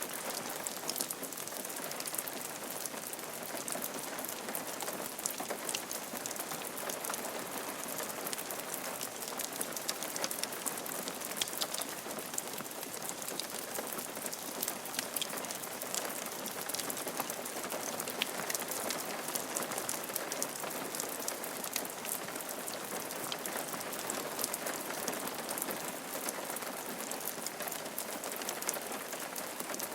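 Steady rain falling on a roof, an even hiss dotted with the ticks of many single drops striking it.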